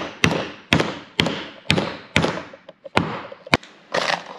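A hammer driving copper nails into oak frame and planking: seven sharp blows, about two a second, each ringing briefly, then a softer clatter near the end.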